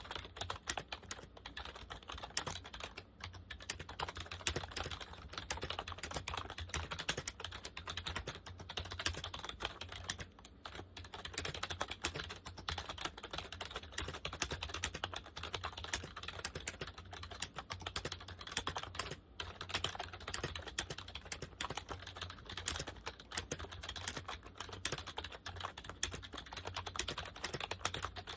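Typing on a Compaq KB-3923 rubber dome keyboard: a fast, continuous stream of soft keystroke clicks, with a few brief pauses.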